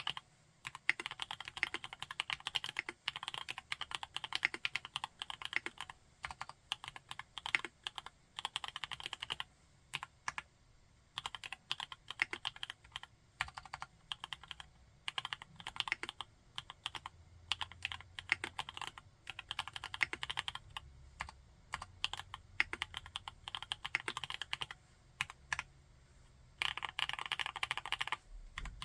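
Typing on a TKD Cycle 7 mechanical keyboard with MMD Princess tactile switches. Fast runs of keystrokes alternate with slower, scattered single presses, with a dense burst near the end.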